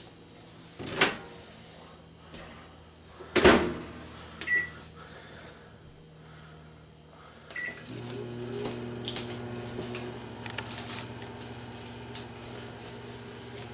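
Microwave oven being closed and started: a click, then a louder clunk of the door shutting about three and a half seconds in, and two short keypad beeps. About eight seconds in the oven starts and runs with a steady hum, heating a plastic cup of water.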